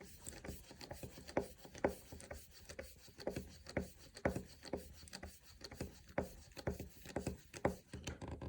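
A series of short scraping strokes, about two a second and uneven, as the outline of a brass hinge is scored into a hardwood door.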